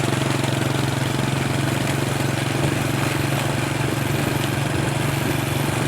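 Vehicle engine running at a steady speed while travelling, a constant low hum under a rush of noise.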